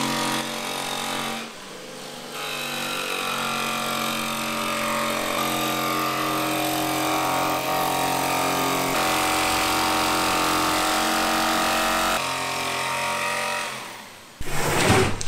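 Handheld jigsaw cutting a laminated fiberglass sheet, its motor running steadily with sudden changes in pitch every few seconds. It winds down near the end and a short clatter follows.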